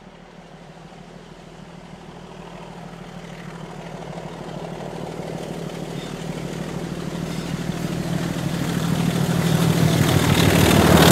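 Diesel locomotive hauling a passenger train approaches, its engine running with a steady low drone. The sound grows steadily louder throughout and is loudest at the very end as the train draws close.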